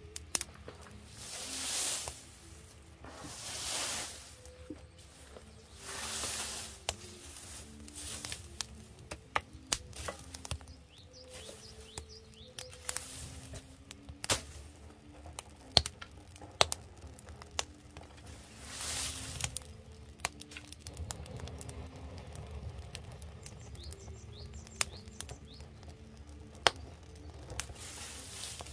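Wood fire burning in an outdoor firebox under a cast-iron cauldron, crackling with many sharp pops throughout. Several short rushing swells stand out, three in the first seven seconds and one about nineteen seconds in, while the fire is tended with a stick.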